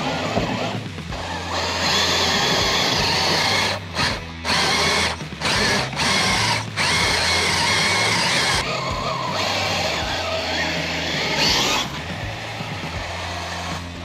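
Redcat Gen8 RC crawler's electric motor and geared drivetrain whining as its tyres churn through mud and slush, cutting off abruptly several times between about four and seven seconds in.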